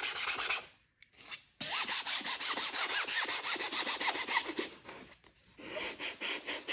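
Hands rubbing quickly back and forth over heat-transfer paper pressed onto a shirt, a fast, even scratchy rasp of about ten strokes a second, stopping briefly about a second in and again near five seconds. The rubbing presses the heat-transfer design down onto the fabric before the paper is peeled off.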